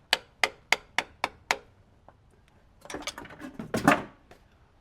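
Rapid metal-on-metal hammer blows, about three a second, driving a gasket scraper in to pry a stuck, corroded aluminum thermostat housing off the engine; they stop about a second and a half in. About three seconds in comes a short splashing rush as the housing breaks free and a little coolant runs out.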